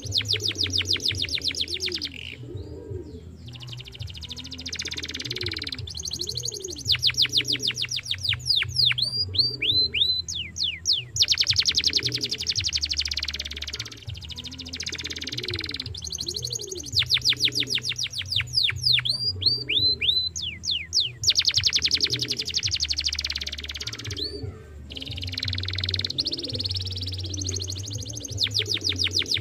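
Domestic canary singing in long phrases of very rapid trills with short pauses between them; a couple of phrases end in a few downward-sliding whistled notes.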